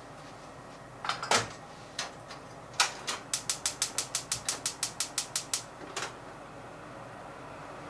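A few knocks as the pot is set on the gas hob, then the hob's spark igniter clicking rapidly and evenly, about seven clicks a second for a couple of seconds while the burner is lit, with a steady hiss of the gas flame near the end.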